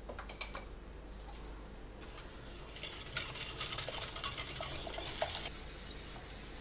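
Wire whisk stirring quickly in a stainless steel pot of milk, ground rice and just-added sugar, its wires scraping and clicking against the pot. A few light clinks come first, and the busy whisking runs from about two seconds in until about five and a half seconds.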